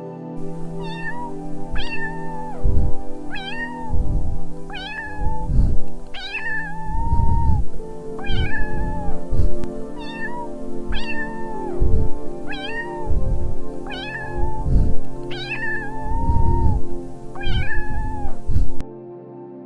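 Domestic cat meowing again and again, a dozen or so meows roughly a second and a half apart, over steady background music. The meows cut off abruptly about a second before the end.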